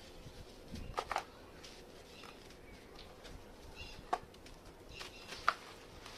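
Crunchy baked red sand chunks crunching and crumbling in a few sharp, separate cracks: two close together about a second in, then single ones about four and five and a half seconds in.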